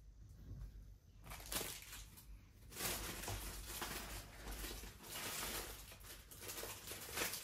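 Plastic packaging crinkling and rustling as it is handled. Brief rustles about a second in, then near-continuous crinkling from about three seconds in.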